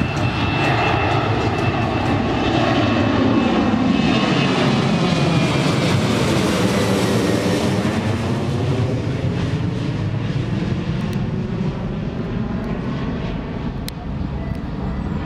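Twin-engine jet airliner climbing out after takeoff and passing overhead, its engines giving a loud rush with a high whine. The sound swells to its loudest a few seconds in, with a sweeping, phasing quality as the plane passes, then fades as it flies away.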